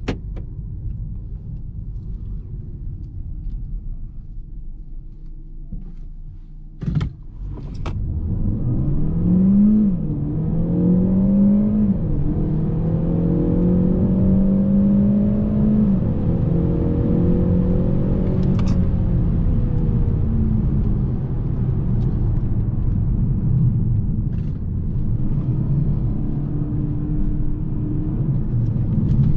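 Peugeot 508 PSE's turbocharged four-cylinder petrol engine accelerating hard through the gears of its automatic gearbox. After a low steady rumble and two sharp clicks about seven seconds in, the engine note climbs, drops at an upshift about ten seconds in, climbs and drops again about two seconds later, then holds steady and eases off.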